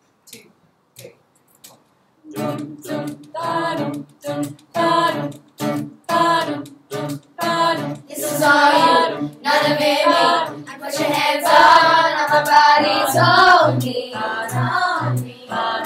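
Children's choir of girls singing a pop song together, with a regular strummed acoustic guitar beat underneath. The singing comes in about two seconds in and grows louder toward the end.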